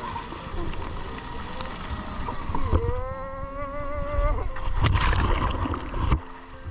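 A drawn-out, wavering shout or squeal from a person, held for about a second and a half, then splashing, rushing water that stops abruptly about six seconds in.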